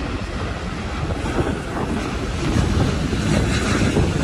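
Airbus A350-900's Rolls-Royce Trent XWB jet engines rumbling on final approach, a steady noise growing gradually louder as the airliner nears, with wind buffeting the microphone.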